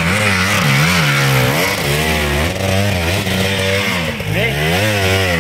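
Dirt bike engine revving up and down over and over under load, its pitch rising and falling about once a second as the throttle is worked on a muddy climb.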